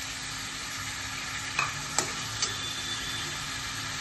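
Raw prawns and shredded cabbage sizzling in hot oil in a wok, a steady hiss, with three sharp metal clinks about halfway through.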